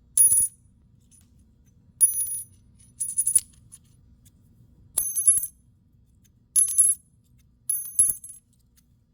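Two silver quarters clinked together six times. Each strike gives a short, bright, high ring with clear steady tones, the sound by which silver coins are told apart from clad ones.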